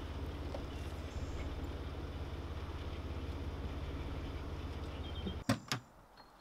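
Jeep Wrangler engine idling steadily, then stopping abruptly about five and a half seconds in, followed by two sharp clicks.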